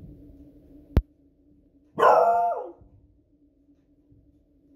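Beagle barking once, loud and sharp, about two seconds in: an alarm bark at fireworks noise. A short sharp click comes about a second before it.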